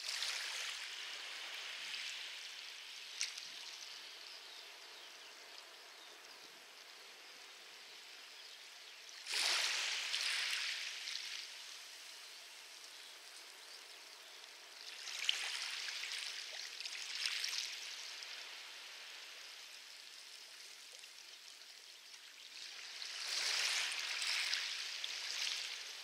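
Light waves washing over a pebble beach: a hissing wash of water over stones that swells and fades, four surges several seconds apart, with faint clicks of pebbles.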